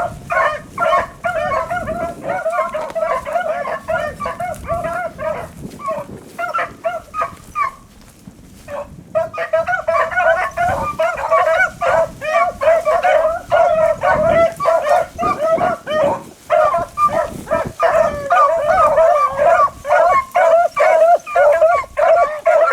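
A pack of beagles baying together on a rabbit's track, many overlapping voices in full cry. The cry dies down briefly near the middle, then picks up again, dense and loud.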